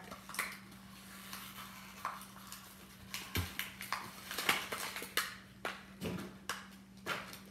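Small cardboard blind boxes of collectible toy figures being handled and opened: an irregular run of short rustles, taps and clicks from cardboard and packaging, over a low steady hum.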